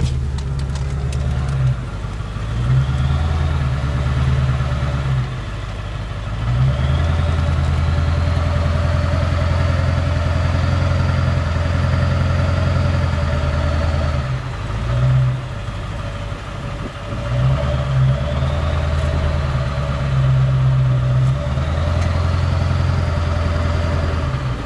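Pickup truck engine heard from inside the cab while driving slowly, its sound swelling and easing off several times with the throttle. A faint whine climbs and falls twice as the truck speeds up and slows.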